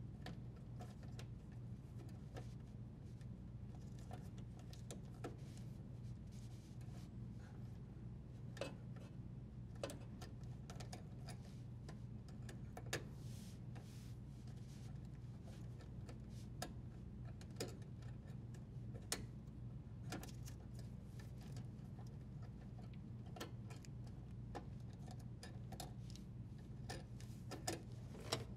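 Faint, irregular clicks and light handling noises of plastic wire nuts and copper wires being twisted apart and pulled loose, over a steady low hum.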